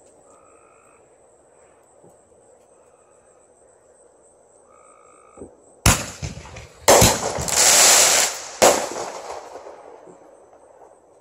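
Consumer firework going off: a sharp bang about six seconds in, then about four seconds of dense crackling and hissing broken by two more loud cracks, fading out.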